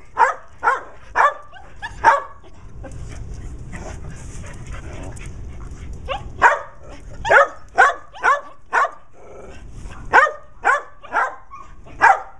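Dogs barking in quick runs of sharp barks, about five or six to a run, with a pause of a few seconds after the first run.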